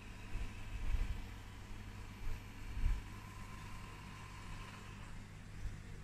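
Xiaomi Mijia 1C robot vacuum running while it cleans: a steady low motor hum with a faint hiss and a few soft low thumps.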